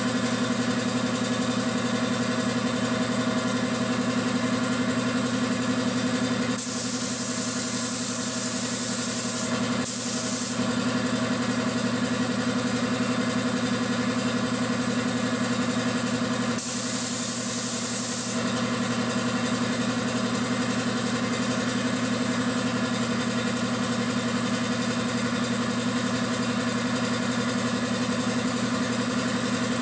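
Air compressor motor running with a steady low hum, while a gravity-feed air spray gun hisses as it sprays paint in three bursts: one of about three seconds starting some seven seconds in, a short one right after, and one of under two seconds about seventeen seconds in.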